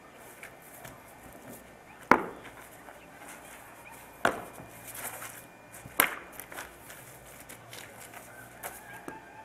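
Sharp knocks from a spear form being practised on stone paving: three loud cracks about two seconds apart, with lighter taps between.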